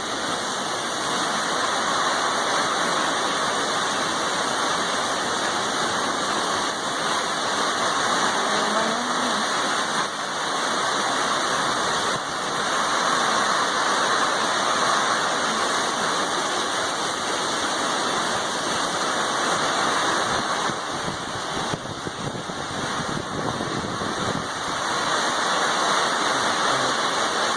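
Heavy thunderstorm rain and wind, a steady loud rush of noise that swells and eases slightly without letting up.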